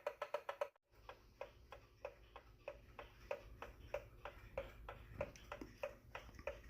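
1937 Ingraham mechanical clock movement ticking steadily. Fast ticks, about six a second, break off less than a second in. After a short gap, fainter, even ticking follows at about three a second.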